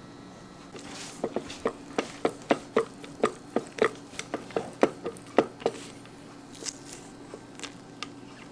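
A knife sawing down through a jelly-topped rice cake, a quick run of crisp clicks, about four a second, for about four seconds, then a few scattered ticks.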